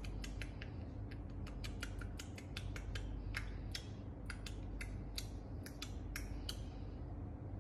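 A series of sharp, irregular clicks, about four a second, that stop about six and a half seconds in.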